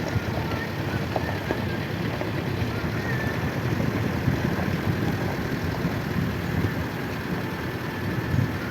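Off-road vehicle running with a steady, rough engine and driving rumble.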